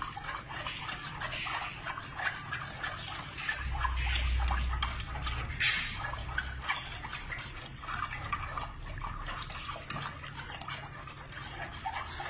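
Wooden chopsticks stirring a thin, milky kudzu-starch slurry in an aluminium pot: liquid swishing with many small irregular clicks and scrapes of the chopsticks against the pot.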